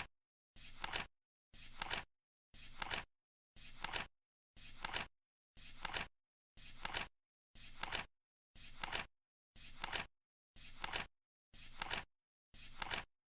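Flip clock counting down, one flap flipping over each second: a brief noisy flip that ends in two sharp clicks, repeated evenly.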